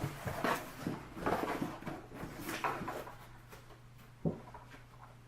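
Cardboard box and packing being handled: a run of short rustles and scrapes, then a single knock about four seconds in.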